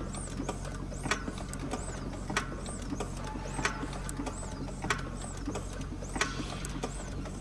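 Starter motor cranking a Cessna 401's six-cylinder Continental engine with its spark plugs out, a steady whirring hum. A sharp tick comes about once a second as spark jumps from the plug lead grounded against the cylinder head: the magneto is making spark.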